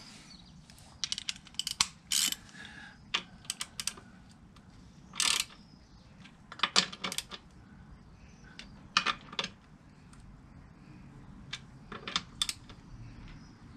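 Metal hand tools clicking and clinking in short scattered bursts: a socket wrench being fitted and worked on the bolts of an outboard's lower engine mount.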